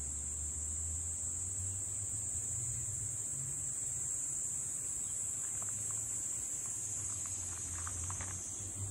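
Steady, high-pitched chorus of summer insects, with a low hum underneath and a few faint short chirps in the second half.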